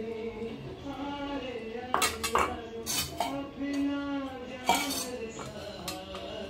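Stainless steel idli plates clinking as they are handled and greased, with several sharp metal clinks between about two and five seconds in, over a song playing in the background.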